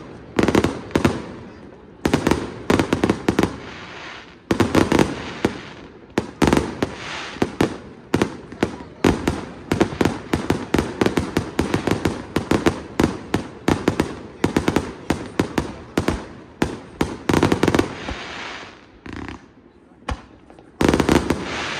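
Aerial fireworks finale barrage: a dense run of sharp bangs and crackles, several a second. Near the end the barrage thins briefly, then another loud volley comes.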